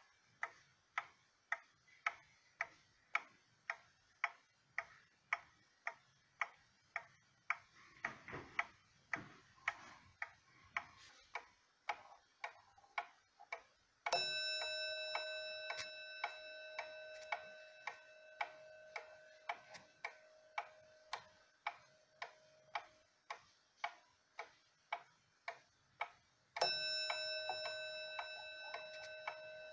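Ethan Allen skeleton wall clock's German mechanical movement ticking evenly at about two ticks a second. About halfway through, and again near the end, it strikes a single chime note that rings on and fades slowly under the ticking.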